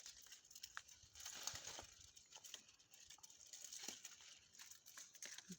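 Faint rustling and crackling of dry plants being handled during harvest, with scattered small clicks.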